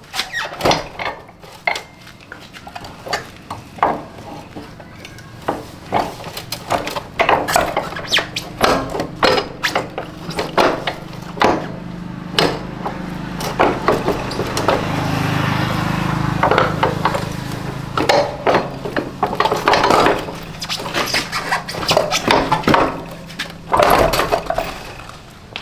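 Irregular clinks, knocks and clatter of hard objects being handled and set down, many short strikes in quick, uneven succession, with a low steady hum swelling for a few seconds midway.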